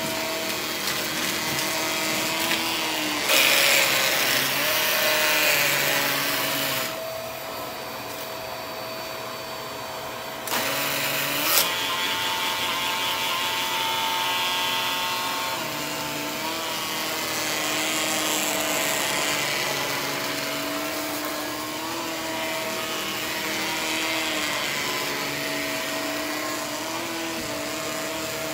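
Vacuum cleaner motor running as it is pushed over carpet: a steady whining hum over a hiss of air. It grows louder and hissier about three seconds in and dips quieter from about seven to ten seconds, then runs evenly again.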